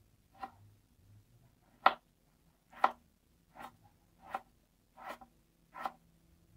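Chef's knife slicing through a tomato and striking a plastic cutting board: about seven separate slow chops. After the first two, they come evenly, about one every three-quarters of a second.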